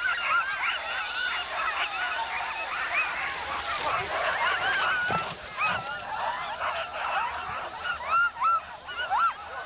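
Many sled dogs yelping and barking at once, a dense chorus of short, overlapping high calls.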